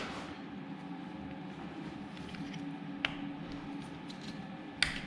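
Timing chain parts on a VR6 engine being handled and fitted: a sharp click about three seconds in and a quick double click near the end, over a steady background hum.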